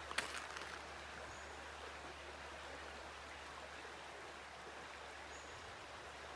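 Shallow creek water running steadily over stones and around bridge pilings, with a couple of sharp clicks in the first second and two faint high chirps.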